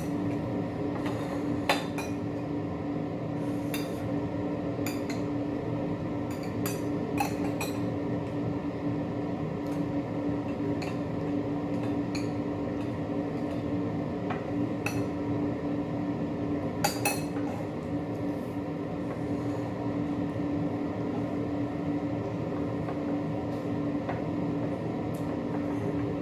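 Utensils clinking against kitchenware: scattered light clinks at irregular intervals over a steady low hum.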